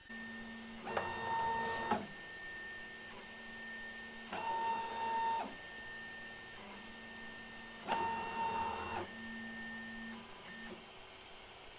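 JGAurora A7 3D printer's stepper motors whining in three bursts of about a second each, a few seconds apart, with a faint steady hum in between, as the printer runs its hardware auto bed-leveling with its induction sensor and three Z motors.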